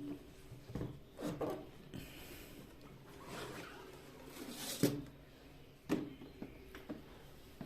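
Cardboard box and packing being handled and pulled open: a series of short rustles and scrapes, the sharpest a little before the five-second mark.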